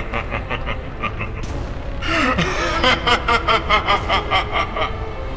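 Laughter in two runs of quick pulses, about five a second, the second starting about two seconds in, louder and longer, over background music.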